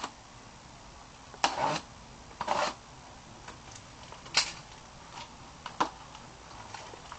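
A small taped cardboard box being handled and pulled open by hand: a series of short rustles, scrapes and knocks of cardboard and packing tape, the loudest about one and a half, two and a half and four and a half seconds in.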